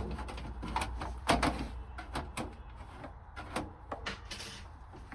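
A desktop power supply being pushed and knocked into place in a PC case: a series of irregular knocks and clicks of metal parts, the loudest about a second in.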